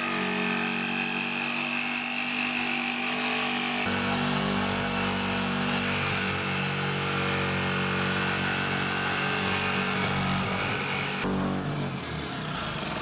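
Corded jigsaw cutting through a van's sheet-metal side panel, its motor running steadily. Its tone shifts about four seconds in and again shortly before the end.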